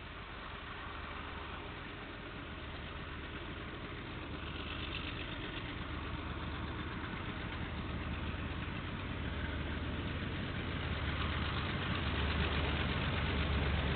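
Diesel locomotive engine running and growing steadily louder as the train approaches, its deep hum strongest near the end.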